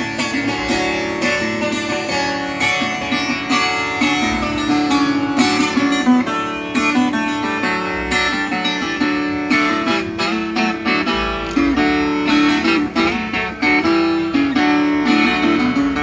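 Viola caipira, the Brazilian ten-string folk guitar, playing an instrumental melody of quick plucked notes over ringing open strings, with no singing.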